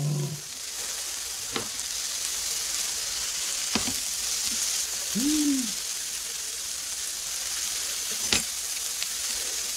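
Slices of beef sizzling steadily on a perforated tabletop grill pan, with three sharp clicks of metal tongs against the pan as the meat is turned.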